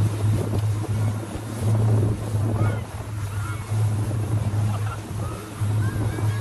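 Speedboat outboard motor running at speed under load, a steady low drone, over the rush of churning wake water.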